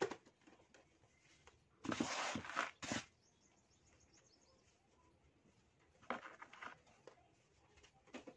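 Sand scraped and crumbling against the wall of a plastic bucket. There is a loud gritty rub lasting about a second, about two seconds in, then softer crumbly crackles around six seconds and a short one near the end.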